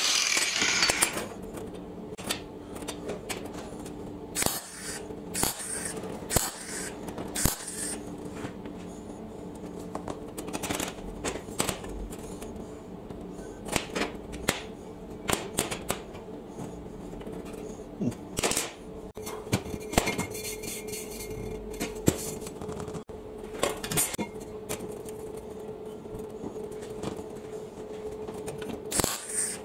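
An angle grinder cutting steel stops about a second in. After that, steel brake discs and scrap parts clink and knock sharply as they are handled and set down on a steel welding table, over a steady low hum.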